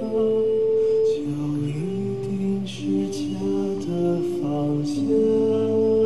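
A slow, lullaby-like song sung in long held notes that step from pitch to pitch, with a lower part sounding beneath the melody and soft sung consonants between the notes.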